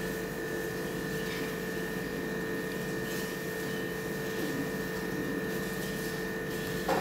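Steady mechanical hum of a household appliance running, with a few steady tones held unchanged throughout.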